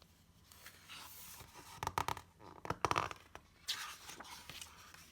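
Paper rustling with a few sharp clicks, as when a picture-book page is handled and turned.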